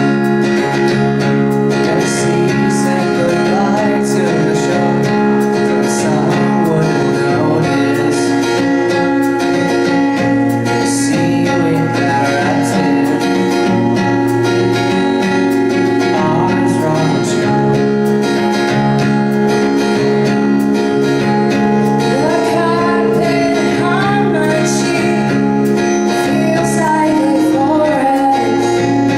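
A band playing a song: strummed guitar chords held under a sung melody that comes and goes.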